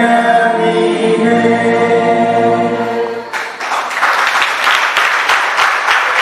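A crowd singing an anthem together in sustained, held notes. A little over three seconds in, the singing cuts off and loud applause takes over.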